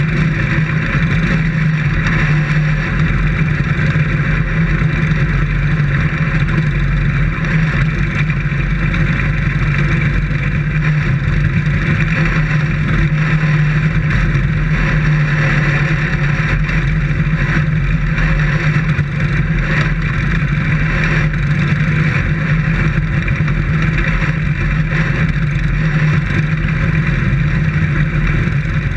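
Dirt-track race car engine running at a steady, even speed, heard from inside the car's cockpit, with no revving up or down.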